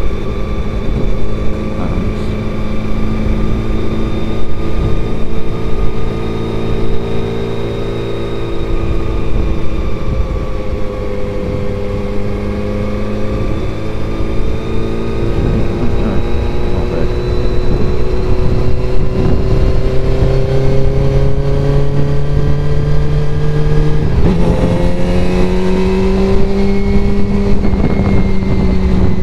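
Honda CBR400RR's inline-four engine running under way, heard from a helmet camera with wind rushing over the microphone. The engine note sags a little, then climbs slowly and steps up sharply in pitch about three-quarters of the way through.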